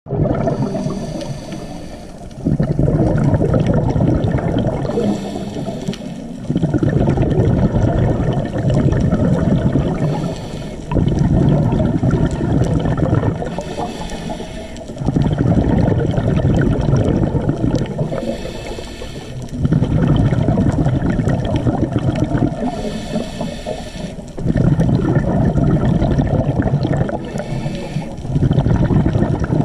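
A scuba diver breathing through a regulator, heard through a GoPro's underwater housing. Each breath is a short hiss on the inhale, then a loud rush of exhaled bubbles lasting two to three seconds, repeating about every four seconds.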